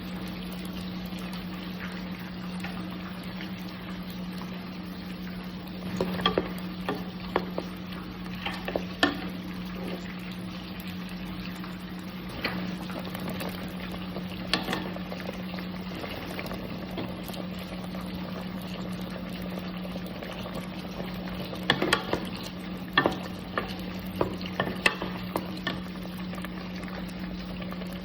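Food cooking in a pot or pan on the stove, bubbling steadily over a constant low hum, with two short runs of sharp clinks and taps from a utensil stirring against the pan, a few seconds in and again near the end.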